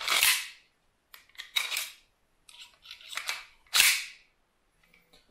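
Metallic clicks and clacks from a Baikal MP-654K CO2 air pistol being handled as its magazine is pulled out of the grip. A brief scrape comes first, then a scatter of small clicks, and a sharp snap about four seconds in is the loudest.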